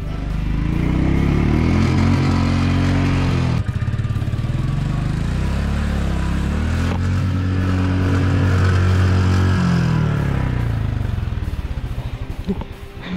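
Motorcycle engine revving at high throttle, its pitch held high for a couple of seconds. It drops briefly about three and a half seconds in, revs up again for several seconds, then dies down near the end. The bike is trying to climb a slippery, muddy uphill track.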